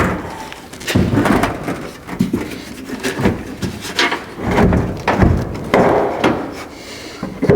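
Irregular knocks and clunks of a part being handled and fitted back onto a car door, about one every second.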